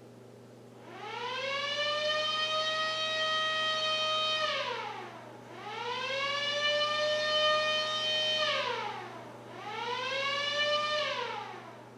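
MS-190 siren sounding three short blasts: each one winds up to a steady wailing tone, holds it and winds down. The first two are held about three seconds each and the last is shorter.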